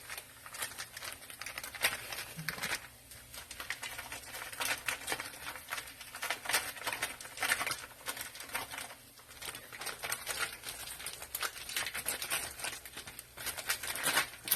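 Dried seaweed (gim) being crushed by hand into flakes: a dense run of dry crackling and crinkling, with brief pauses about three seconds in and again near nine seconds.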